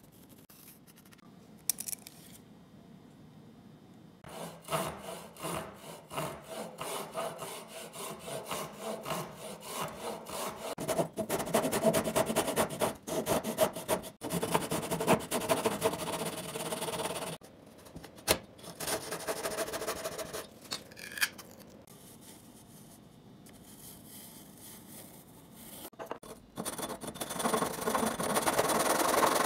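Fine-toothed hand saw cutting through a light softwood strip in quick, even back-and-forth strokes. The sawing starts a few seconds in, dies down to a lull about two thirds of the way through, then starts again near the end on a small block.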